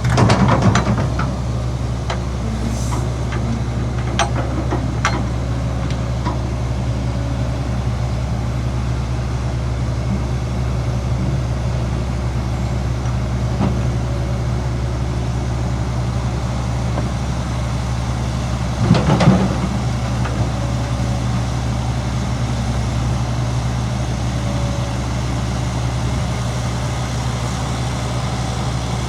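Heavy diesel earth-moving machinery running steadily with a low, even engine drone. There are two short louder bursts of noise, one at the very start and one about two-thirds of the way through, and a few faint clicks a few seconds in.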